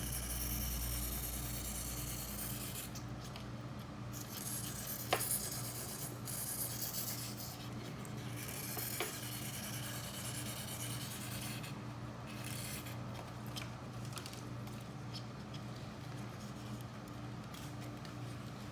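Hands and gloves rubbing and scraping on lawn mower carburetor parts, with two sharp clicks about five and nine seconds in, over a steady low hum.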